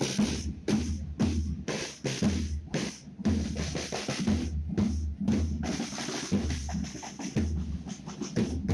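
A group of rope-tensioned wooden side drums beaten together in a rhythmic processional pattern.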